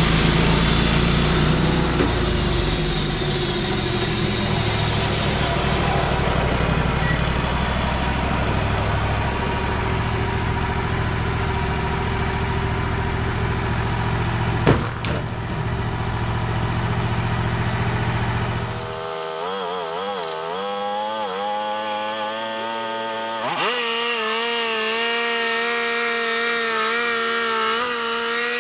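Wood-Mizer LT35 band sawmill running and sawing a yellow pine log, engine rumble under the blade noise, with one sharp knock about halfway. About two-thirds of the way in the low rumble drops away and a pitched whine takes over, wavering at first, then steady.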